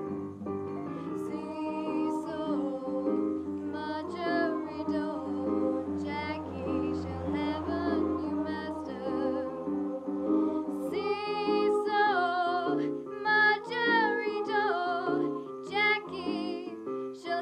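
A female vocalist singing into a microphone over held instrumental chords. Her voice wavers with vibrato and comes through more strongly in the second half.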